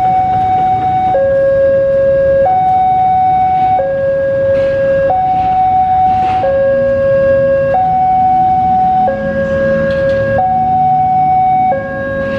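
Railway level-crossing warning alarm: an electronic two-tone signal that swaps between a higher and a lower tone about every 1.3 seconds, sounding while the barrier closes for an approaching train. Road traffic and motorcycle engines run underneath.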